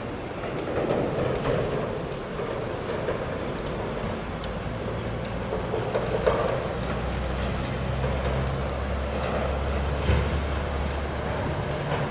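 Low engine hum over a steady background rush, strongest from about five to ten seconds in.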